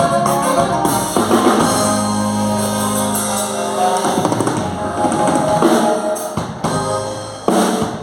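A band with a drum kit plays an instrumental passage, with sustained chords over bass drum and snare. It ends on a few sharp accented hits near the end.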